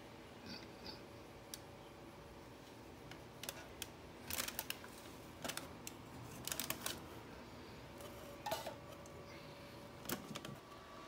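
Irregular light clicks and knocks, like small hard objects being handled, over a faint steady hum. The clicks come in short clusters, the loudest about four and a half and six and a half seconds in.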